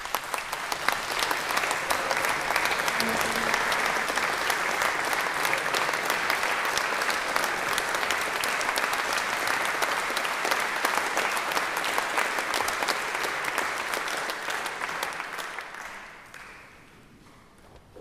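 Audience applauding: dense clapping that dies away about sixteen seconds in.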